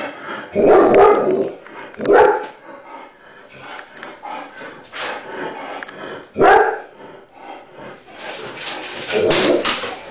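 German Shepherd dog barking repeatedly: loud barks about a second in, at two seconds and at six and a half seconds, then a longer run of barking near the end. It is alert barking at a cat outside the window.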